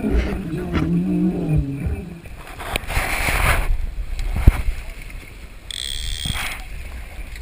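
Sea water splashing and sloshing against the side of a small fishing boat as a fish is brought alongside, with a single sharp knock about four and a half seconds in.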